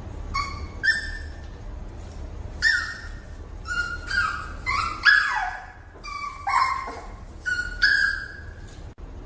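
Dog whining in a string of short, high-pitched whines and yips, several sliding down in pitch.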